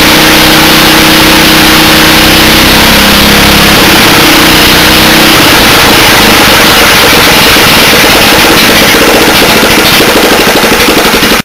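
Honda GV400 400 cc single-cylinder four-stroke engine running loud and steady, freshly repaired after a stuck exhaust valve. Its note shifts a couple of times as the carburettor linkage is worked by hand, and the running turns uneven and pulsing near the end.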